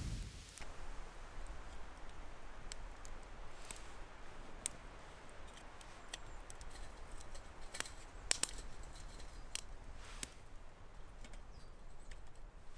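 Small wood fire crackling in a Solo Stove Lite twig stove: irregular sharp pops and snaps over a faint hiss.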